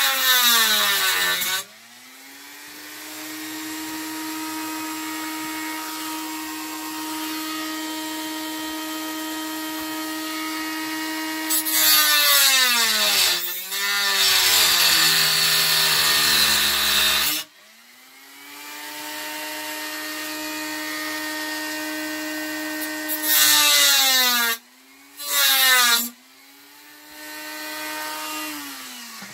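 Rotary tool with a cut-off wheel cutting through a plastic turntable dust cover: a steady high motor whine that sags in pitch each time the wheel bites in, with loud harsh grinding of the plastic, then climbs back as the wheel lifts off. This happens several times, and near the end the whine falls as the motor winds down.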